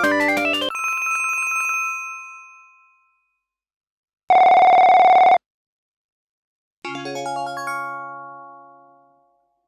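Sharp J-SH04 mobile phone playing its built-in polyphonic ringtones through its small speaker. A synthesized melody stops, then a bell-like chime fades away, then a loud buzzing tone lasts about a second. A final synthesized chord rings out and fades.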